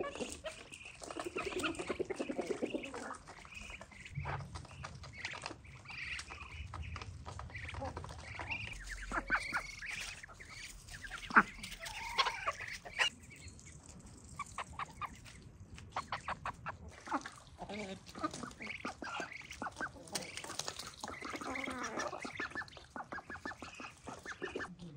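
A farmyard flock of chickens and ducks feeding on scattered grain: clucking and quacking mixed with quick runs of clicking from bills pecking at the grain. One sharp click a little before the middle is the loudest sound.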